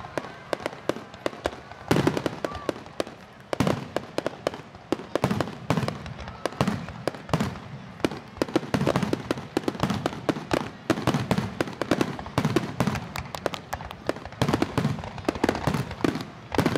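Aerial fireworks display: a rapid, continuous string of shell bursts, many bangs a second, mixed with crackling.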